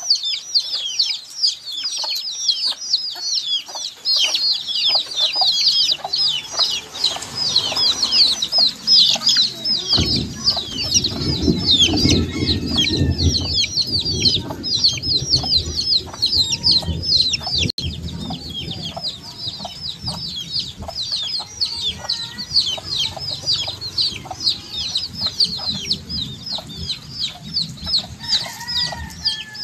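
Baby chicks peeping continuously: many short, high, falling chirps overlapping in a dense chorus. From about ten seconds in, a low rumbling noise runs underneath.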